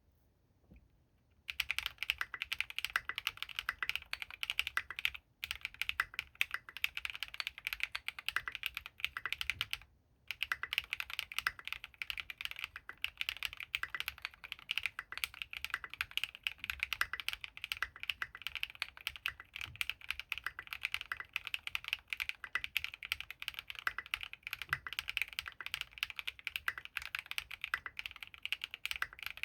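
Mechanical keyboard typing: a Geonworks Frog TKL with lubed Gateron RAW switches, Signature Plastics SA keycaps and an aluminium plate, typed on continuously. It starts about a second and a half in, with two brief pauses.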